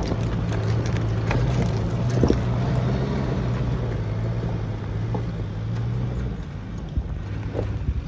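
Off-road 4x4 engine running steadily at low speed, with scattered knocks and clatter from the truck crawling over the rough track. The engine hum eases off about six seconds in.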